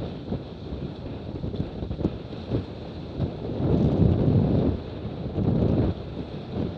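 Wind buffeting the microphone and water rushing and splashing past the hull of a Cirrus F18 catamaran sailing fast, with a few short slaps. The noise swells louder twice in the second half.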